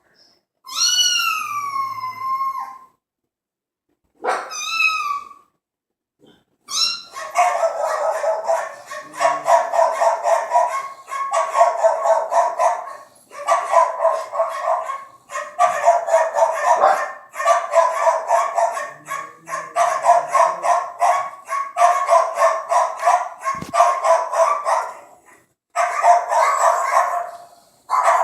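Two long, wavering cat meows from a sound-effect recording, then a dog-barking sound effect played through a sound bar. The barking comes in rapid bursts of a second or two with short gaps.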